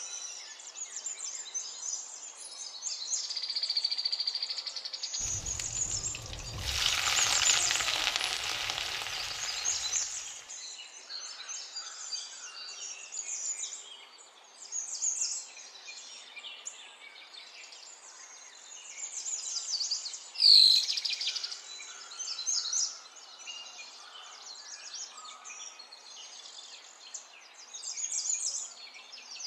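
Sliced red onions frying in hot butter and oil in a nonstick pan. About five seconds in they hit the fat and the sizzle jumps to a loud, full hiss for several seconds, then settles into a steady crackling fry. There is a short sharp sound a little past two-thirds of the way through.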